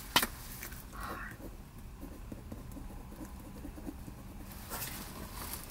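Faint handling of index cards and a pen: a sharp click just after the start, a short paper rustle about a second in, and a few more light rustles near the end.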